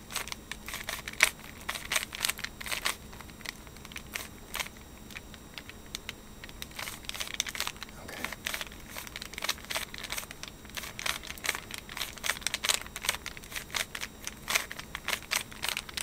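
Rubik's Cube layers turned rapidly by hand during a speed solve: a fast, irregular run of plastic clicks and clacks.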